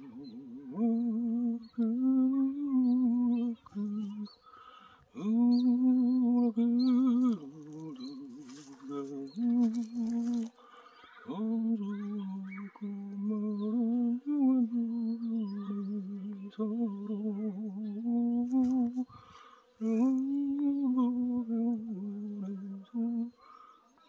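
A person humming a slow melody without words, in long held notes with vibrato and short pauses between phrases.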